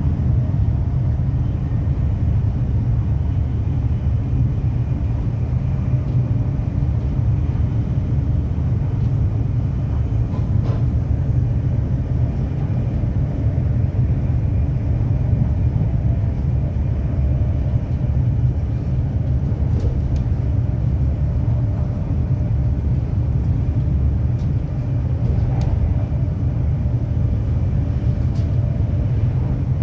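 Steady low rumble of a moving vehicle running at an even pace, with a few faint clicks.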